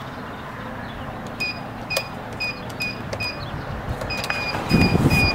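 Security-gate keypad beeping as a code is punched in: short high beeps, one per key press, five about half a second apart, a pause, then four more. A low rumble swells briefly near the end.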